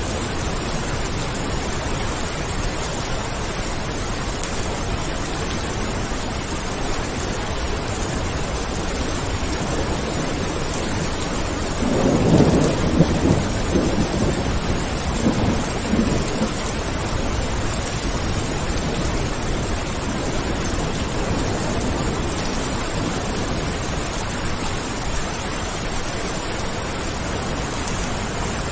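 Steady rain falling, with a roll of thunder about halfway through that rumbles in several peaks over some four seconds before fading back into the rain.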